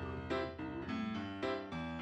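Background music: keyboard notes played one after another, about two a second.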